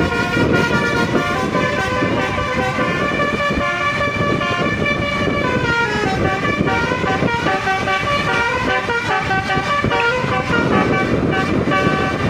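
Bus "telolet" musical horn playing a run of changing notes over the bus's engine and road noise. The horn notes fade out near the end, leaving the engine and road noise.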